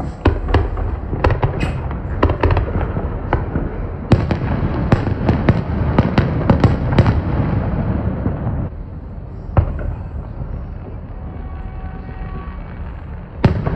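Fireworks display: aerial shells bursting in quick succession, many sharp bangs and crackles over a steady low rumble for about eight seconds, then thinning to two single bangs.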